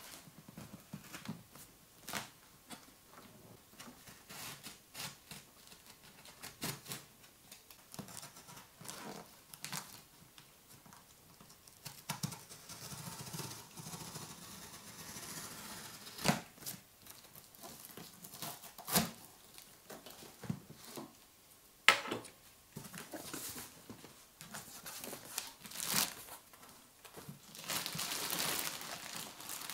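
Packing tape being peeled and torn off a cardboard shipping box, with fingernail scratches and taps on the cardboard and one sharp click about two-thirds through. Near the end the box flaps are opened and the plastic wrapping inside crinkles.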